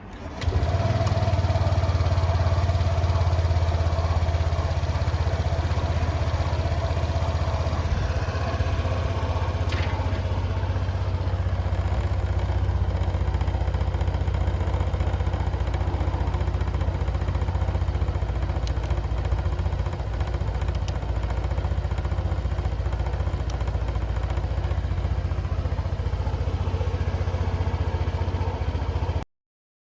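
Honda PCX125 scooter's single-cylinder four-stroke engine starting about half a second in and idling steadily, running on its newly replaced battery; the sound cuts off abruptly near the end.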